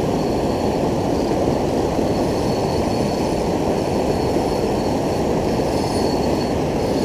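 River rapids pouring over a weir close to the microphone, a loud, steady rushing roar of white water.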